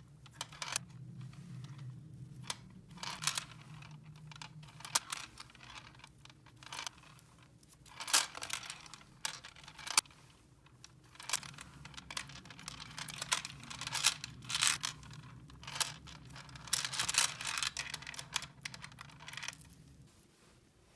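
Hands handling small plastic toy pieces and their packaging: irregular clicks and taps mixed with short crinkling, tearing rustles.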